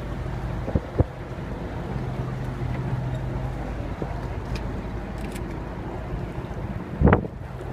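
Boat engine running steadily with a low hum, with wind noise on the microphone; a couple of sharp knocks about a second in and a heavier thump near the end.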